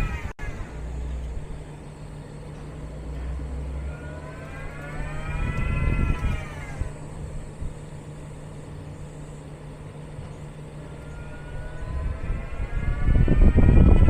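Geely Geometry electric car creeping off and braking in stop-and-go tests for a creak on pull-away and braking. The drive motor's whine rises and falls twice, over a steady hum, with a louder low rumble near the end.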